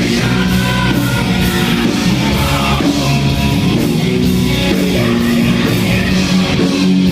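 Loud rock music with distorted electric guitars, drums and a singing voice.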